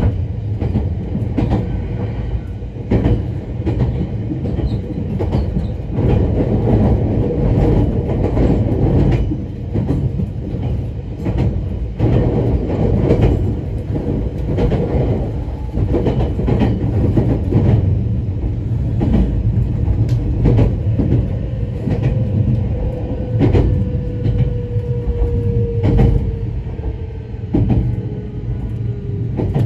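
Nagano Electric Railway 1000 series (ex-Odakyu 10000 series HiSE Romancecar) electric train running, heard from inside the passenger cabin: a steady low rumble with irregular clicks of the wheels over rail joints. In the last third a faint tone slides slightly lower.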